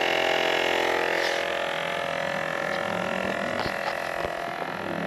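A small motor running steadily, then winding down and stopping about a second and a half in, followed by a few light knocks.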